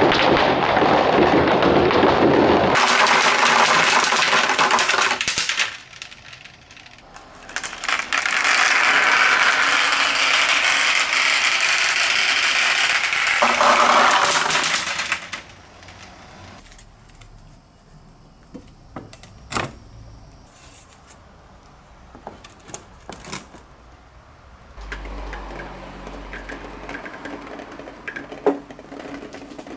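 Marbles rolling down the plastic spiral slides of a marble run: a loud, steady rolling rush in two long stretches, then quieter scattered clicks and clacks of marbles striking the track.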